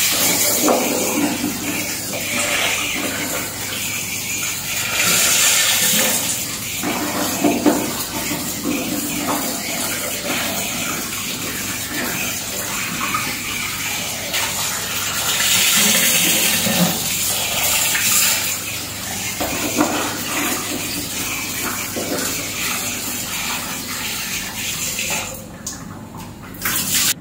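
Tap water running into a plastic basin and splashing, with hands swishing pieces of cassava in the water to rinse them. The flow drops away near the end.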